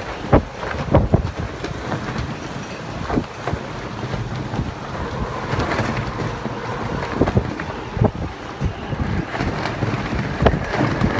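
Gusty storm wind of an Adriatic squall (nevera) blowing hard across the microphone, with irregular buffeting thumps as the gusts hit.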